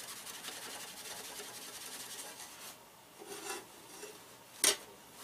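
Paper towel rubbing over a stainless steel plate, wiping off leftover soldering flux: a steady scrubbing for about the first three seconds, then a few shorter rubs. A single sharp knock near the end.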